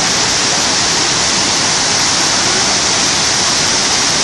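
Waterfall pouring steadily: a constant, even rush of falling water that does not let up.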